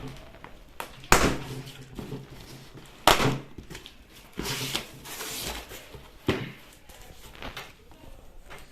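A package being handled and opened: a few sharp knocks, about 1 s, 3 s and 6 s in, with rustling in between.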